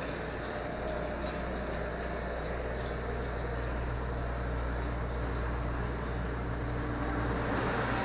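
Commercial door-type dishwasher running its wash cycle: a steady motor hum under a continuous rushing of water spraying inside the closed hood, growing slightly louder near the end.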